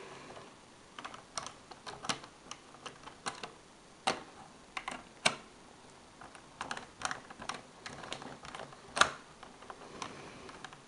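Small screwdriver tightening screws into a laptop's plastic underside: scattered light clicks and taps at irregular intervals, with one louder click about nine seconds in.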